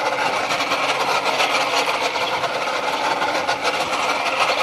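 Boat engine running steadily, heard as a continuous dense whir with a fast rasping texture.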